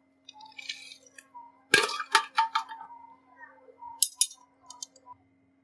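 Hard metal objects clinking and tapping together in short sharp strokes with a brief ring: a loud cluster about two seconds in, and a couple more about four seconds in.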